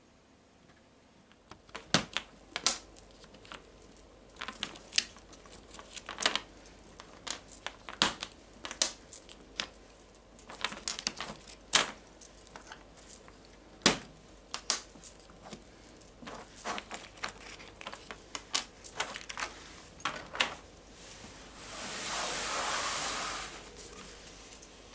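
Sharp irregular clicks and taps of small plastic eyelet pieces being popped out of their card and set down on a table, with metal bangles clinking. Near the end, about two seconds of rustling, like fabric being spread out.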